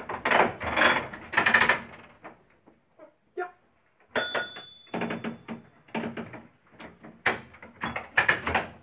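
Clicks, clunks and rattles from a vintage tram's cab controls and running gear, with a bell ringing once about four seconds in.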